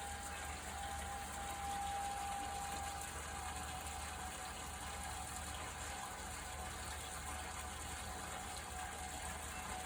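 Outdoor tornado warning siren during its monthly test, holding one steady tone over a constant hiss. The tone is strong at first, fades about three seconds in, and swells back near the end as the siren turns.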